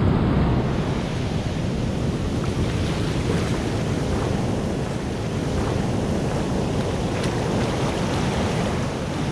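Ocean surf washing onto the beach in a steady wash of noise, with wind blowing on the microphone.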